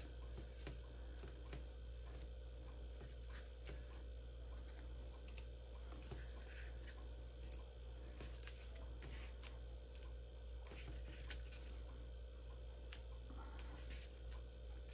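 Faint, scattered light taps and rustles of small cut paper pieces being picked up and set down on a tabletop, over a steady low hum.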